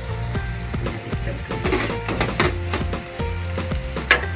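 Cubed tofu frying in hot oil in a pan, sizzling with scattered pops and crackles, over background music.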